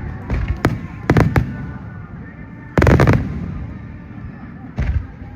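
Aerial fireworks shells bursting in a series of four sharp explosions, each cluster crackling as it fades, the loudest about three seconds in.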